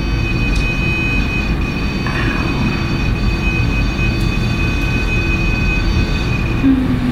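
A steady low rumble with a hiss over it and a thin, constant high-pitched whine, with no distinct knocks or strikes.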